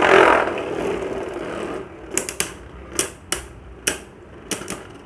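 Two Beyblade Burst tops, Tempest Dragon and Bushin Ashura, whirring as they spin and grind on a plastic stadium floor. From about two seconds in, the whir drops and sharp, irregular clicks come two or three times a second as the tops strike each other.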